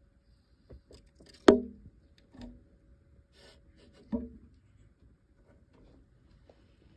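Hand rummaging through the soil substrate and bark pieces of a cockroach enclosure: a sharp knock about a second and a half in, another around four seconds in, with faint rustling and small ticks between.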